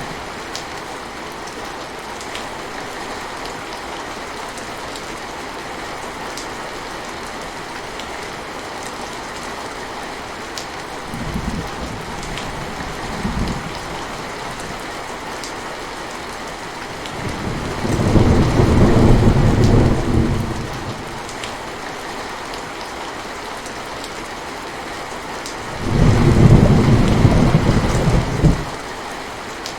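Steady heavy rain falling, with rolls of thunder: two short low rumbles around 11 and 13 seconds in, then two longer, louder rolls of two to three seconds each, about 18 and 26 seconds in.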